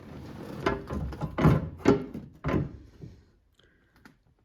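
About four dull knocks in the first three seconds, the loudest near the middle, from something being handled, then near quiet.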